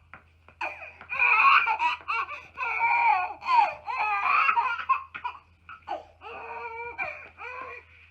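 A small child's high-pitched, wavering vocal sounds in repeated bursts.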